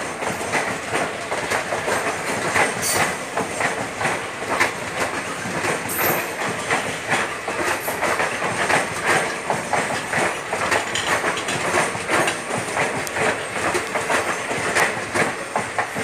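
Indian Railways passenger coaches rolling past at speed, their wheels clattering over the rail joints in a steady, rapid clickety-clack over the rumble of the moving train.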